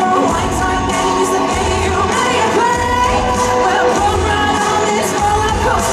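Loud pop music with singing and a steady beat.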